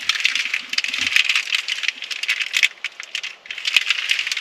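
Crinkly plastic bread wrapping being handled and opened by hand: a rapid run of crackles and rustles with a couple of short pauses.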